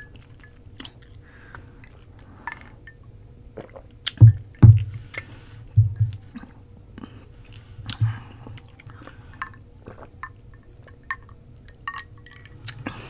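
Close-miked chewing of roti: wet mouth clicks and smacks, with several heavier low thumps around the middle.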